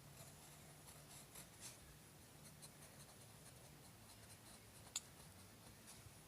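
Faint scratching strokes of a drawing tool on paper, in short bursts, with one sharp click about five seconds in.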